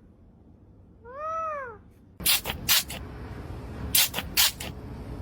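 A single meow, rising and then falling in pitch, about a second in. From about two seconds in it is followed by a string of short, sharp noisy bursts.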